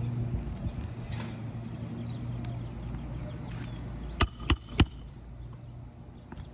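Three quick hammer blows about a third of a second apart, near the end, each with a short metallic ring, driving a roofing nail into a repaired asphalt shingle. A steady low hum runs underneath in the first half.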